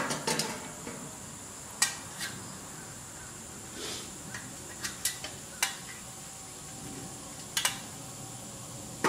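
Sheet-metal parts of a Swedish M40 mess-kit stove clinking as they are handled and fitted: a scattering of sharp metallic clicks and knocks, with a couple of them coming in quick pairs.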